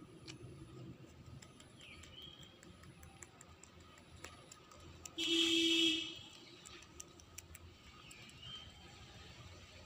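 Rabbits chewing leaves, faint soft clicks scattered throughout, with two faint chirps. About five seconds in comes a loud, buzzy sound lasting under a second.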